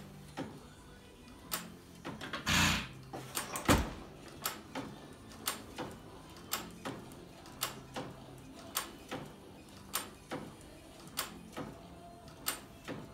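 A 6 hp Field-Brundage sideshaft hit-and-miss engine running: it fires with a loud bang about two and a half seconds in, then coasts on its flywheels. Its valve gear clicks steadily, about two clicks a second.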